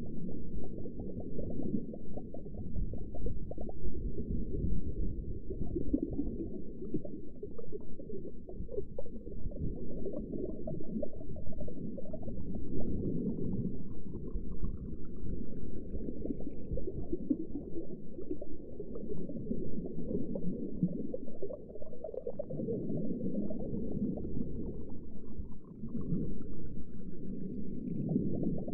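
Underwater ambience: a steady low rumble with bubbling and gurgling water, and two faint rising whistles, one near the middle and one near the end.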